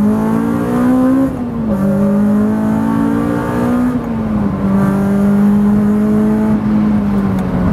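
Supercharged Honda S2000's four-cylinder engine pulling under acceleration, heard from inside the cabin. Its pitch climbs, drops briefly about a second in and again about four seconds in, then holds nearly steady as the car cruises.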